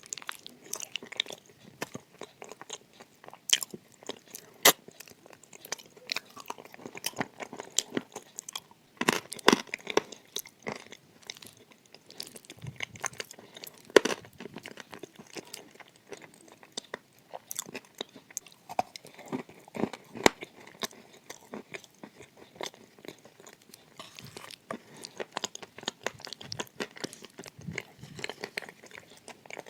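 Person biting and chewing dry edible clay, with dense, irregular crunching and crackling throughout.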